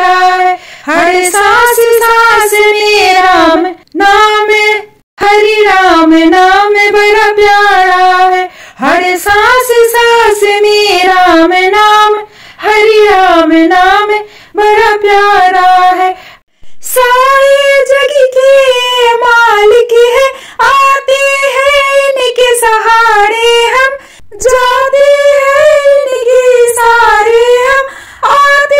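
A woman singing a Hindi devotional bhajan solo and unaccompanied, in phrases with short breaths between them. Partway through, the melody moves up to a higher pitch.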